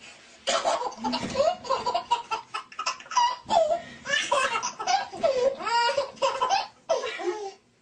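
A baby laughing hard: a string of high-pitched laughs and squeals that rise and fall in pitch, with short breaks for breath.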